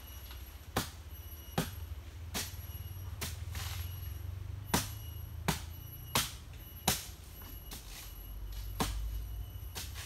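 Chopping blows of a blade into nipa palm stalks: about ten sharp strikes, most a little under a second apart.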